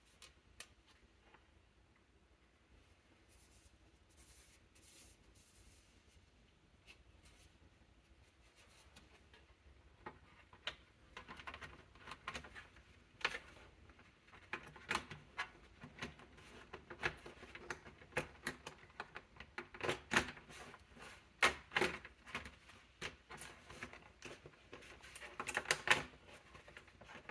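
Small, sharp clicks and taps of hands working on a laptop's plastic and metal parts. Faint at first, then an irregular run of clicks from about a third of the way in, busiest near the end.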